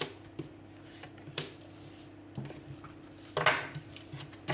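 Oracle cards being drawn from a spread deck and laid down on a table: soft separate taps and slides, with a louder rustle about three and a half seconds in.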